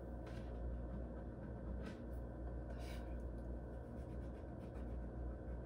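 A few faint scratches and light taps over a low, steady room hum.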